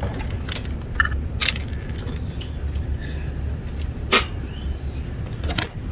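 A few sharp clacks, four in all, the loudest about four seconds in, over a steady low hum.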